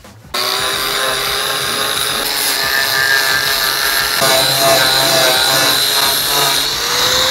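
Pretul angle grinder with a sanding disc running and sanding old paint off an aluminium boat hull, with a steady high whine. It starts abruptly about a third of a second in.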